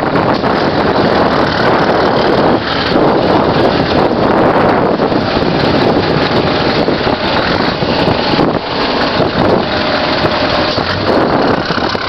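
Scania 144L 530's V8 diesel engine running steadily, heard close to its side exhaust outlet, with wind buffeting the microphone.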